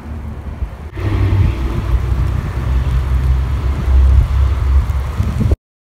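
Wind buffeting the microphone in a snowstorm: a deep, gusty rumble that gets louder about a second in and cuts off suddenly near the end.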